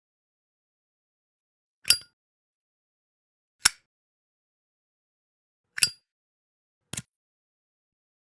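Zippo lighter clicking: four short, sharp metallic clicks about one and a half to two seconds apart, the last one softer.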